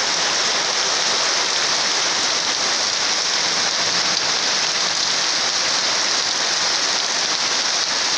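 Heavy rain falling steadily on sheet-metal roofs and a wet paved street, an even, unbroken hiss.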